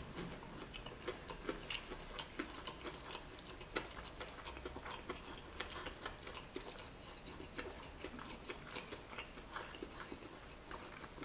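A person chewing a mouthful of crispy fried chicken with the mouth closed: faint, irregular crunches and small mouth clicks.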